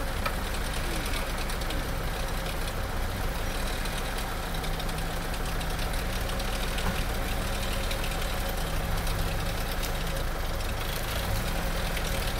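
Vauxhall Frontera 2.8 diesel engine running at low revs with a steady diesel clatter, the revs rising and falling slightly as the 4x4 crawls slowly over a mound with one wheel lifted.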